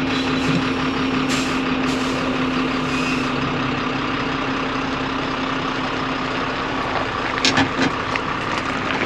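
Heavy truck engine running steadily with a constant drone while the truck manoeuvres. A brief cluster of sharp clicks and hiss comes about seven and a half seconds in.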